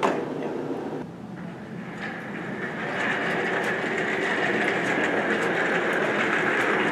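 Office chair casters rolling over a hard hallway floor, a steady rattling rumble that grows louder as the chair is pushed closer.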